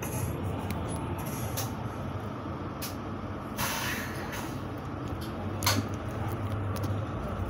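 Inside a city bus: the engine hums steadily under rattles and clicks from the cabin, with a short air hiss about halfway through and a sharp click near the end.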